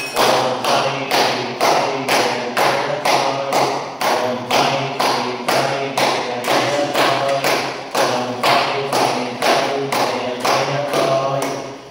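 Devotional music with an even, sharp percussion beat, a little over two strokes a second, over steady sustained pitched tones.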